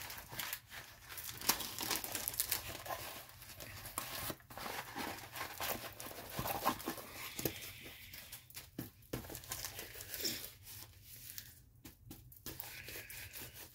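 Irregular plastic crinkling and rustling as a stiff diamond-painting canvas and its plastic wrapping are handled.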